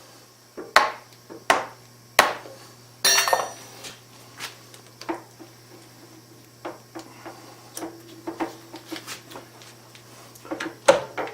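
Metal tools being handled at a milling machine: three sharp metallic knocks, then a ringing rattle of metal on metal about three seconds in, followed by lighter scattered clicks and taps over a steady low hum.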